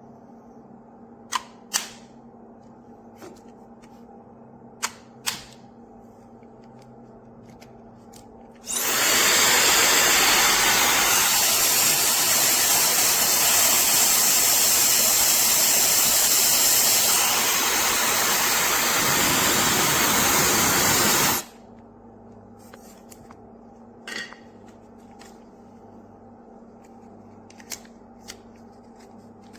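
SUPGALIY 1500 W mini travel hair dryer switched on, blowing steadily for about thirteen seconds, its sound changing briefly partway through, then switched off. A few sharp clicks come before and after it.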